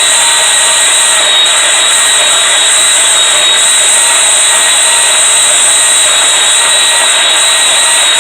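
A power saw running steadily with a high whine, cutting through 1-inch steel flat bar.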